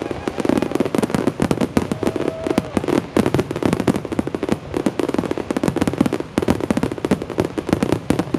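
Fireworks finale barrage: a dense, non-stop stream of shell bursts and crackling bangs, going off many times a second without a pause.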